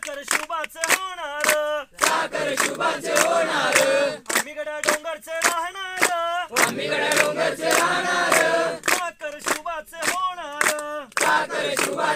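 A group singing a call-and-response chant. A single lead voice sings a line and the whole group answers, to steady hand claps about twice a second.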